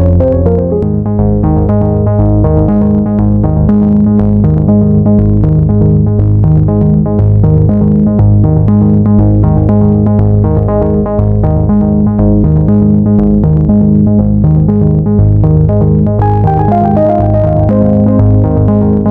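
Background music: synthesizer and keyboard with a steady beat, changing chords about sixteen seconds in.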